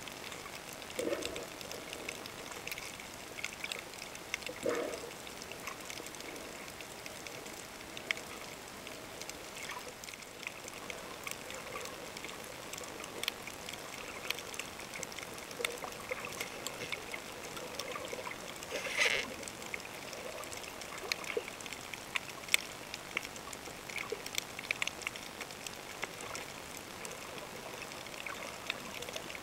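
Underwater sound picked up by a submerged camera over a coral reef: a steady hiss of water dotted with many small crackles and clicks, with a couple of short swishes in the first five seconds and a louder burst of noise about nineteen seconds in.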